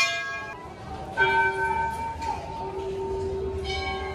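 Temple bells struck by hand, one at a time: a strike rings out about a second in and another near the end, each ringing on and slowly fading, over the fading ring of a strike just before.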